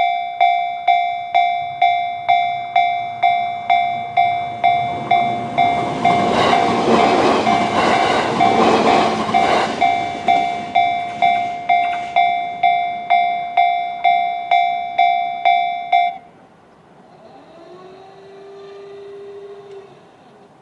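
Japanese level-crossing warning bell in the JR standard electronic tone, striking just under twice a second, while an E129-series electric train passes with a rushing, clicking wheel noise that swells and fades over about six seconds. The bell stops abruptly near the end, leaving a faint rising hum that levels off.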